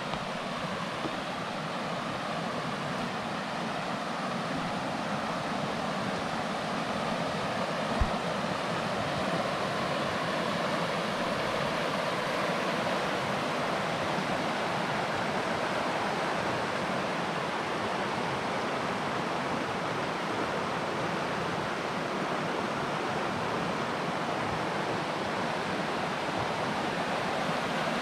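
River water rushing, a steady noise that grows slowly louder over the first ten seconds or so and then holds. A single sharp knock about eight seconds in.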